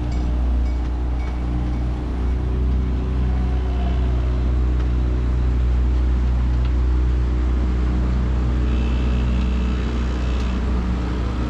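Catalina 25 sailboat's auxiliary motor running steadily at an even speed.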